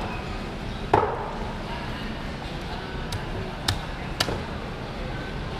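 Cleaver chopping a large fish on a wooden stump chopping block: one heavy chop about a second in, then a few sharper knocks a little later. Underneath is the steady din of a busy market hall with voices.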